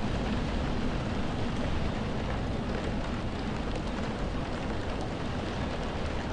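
Heavy rain heard from indoors, drops hitting window glass in a steady wash, with a low rumble underneath and faint scattered ticks of single drops.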